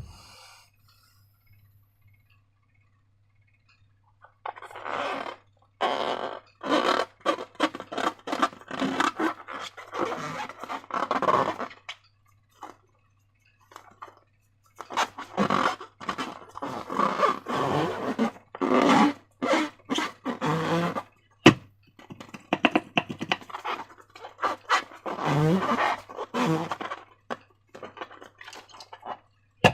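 Slime being squished and worked by hand: quick, irregular sticky crackles and squelches in three long runs, starting about four seconds in, with short pauses between.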